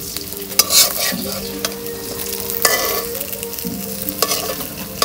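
Pieces of food sizzling in hot oil in a metal karahi. A metal spatula scrapes and knocks against the pan four times as the pieces are turned.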